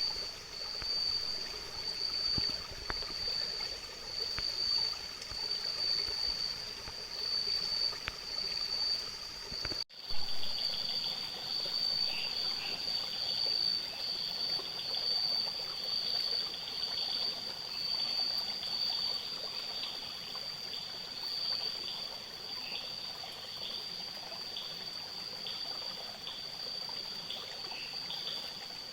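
A cicada's steady, high-pitched buzzing song, pulsing slightly, with a brief break about ten seconds in. Faint short chirps sound beneath it in the second half.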